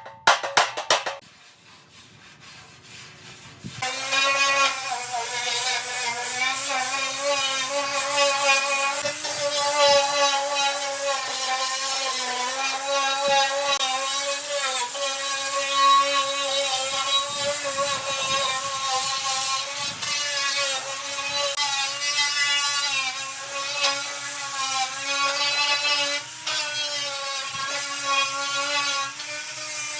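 An electric power tool starts up a few seconds in and runs steadily with a whine that wavers slightly, as if working against a surface.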